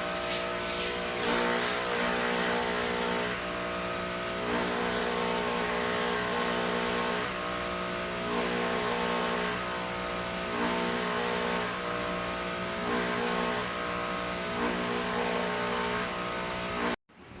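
Techno-Gaz Andromeda autoclave's water-fill pump running steadily, a buzzing hum with a hiss that swells and fades every couple of seconds, as it fills the reservoir tank. It cuts off suddenly near the end.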